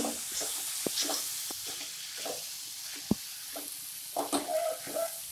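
Green beans, tomatoes and ground spices sizzling in a non-stick kadai as a spatula stirs them through and scrapes across the pan. A few light clicks of the spatula on the pan, and one sharper knock about three seconds in.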